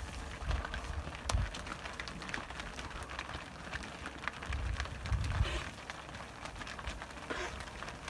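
Many cattle hooves walking on a gravel road, an uneven patter of crunches and clicks as the herd files past, with a few low rumbles.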